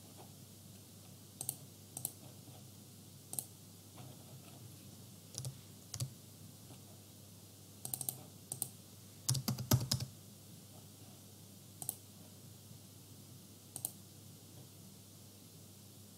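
Computer keyboard keystrokes and mouse clicks, isolated taps every second or two with a quick run of several keystrokes about nine to ten seconds in, over a faint steady hum.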